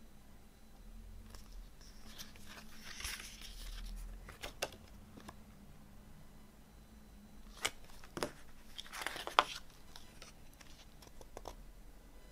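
Glossy paper pages of a CD booklet being turned and handled: soft rustling with several sharp paper snaps, the loudest a little past the middle.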